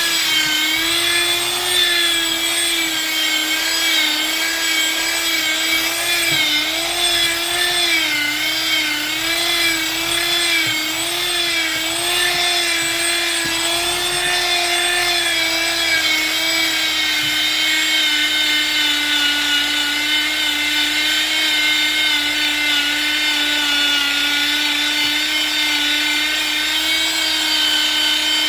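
Bosch electric power tool motor running continuously at high speed while working wood, a high-pitched whine that wavers in pitch as it is loaded and settles a little lower in the second half.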